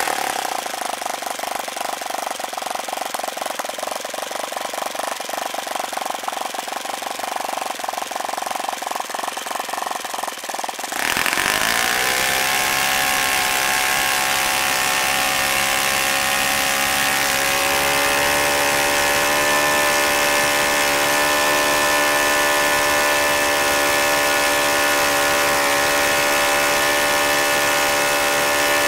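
OS FS-40 single-cylinder four-stroke glow engine turning a 12x6 propeller, running slowly at first with each firing stroke distinct. About eleven seconds in the throttle is opened and the engine winds up quickly to a steady full-throttle note of about 8,700 rpm.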